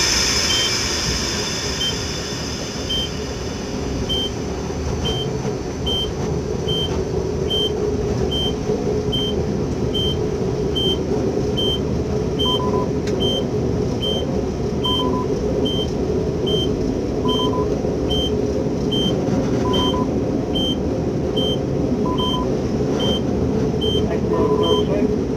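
Rumble and rail noise heard inside an N class locomotive's cab as the train slows under emergency braking. Over it, a short high electronic beep repeats about once a second, joined about halfway through by a lower beep every two or three seconds.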